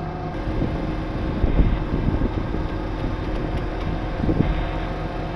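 Rollback tow truck's winch pulling a van up onto its steel deck, the truck's engine running steadily under the winch load. Low thumps about a second and a half, two, and four seconds in as the van's wheels roll up onto the bed.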